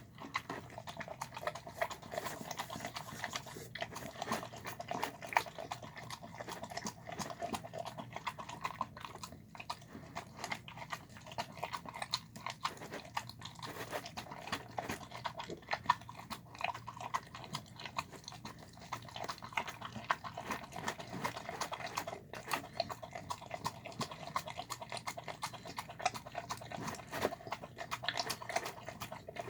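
A dog eating a wet meal of chunky chicken and rice: steady, continuous chewing full of quick wet clicks and smacks.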